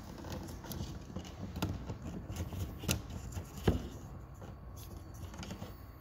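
Plastic parts of a BMW i3 charging socket and lock assembly being handled and fitted by hand: a few sharp clicks and taps over light handling noise, the loudest a little past halfway.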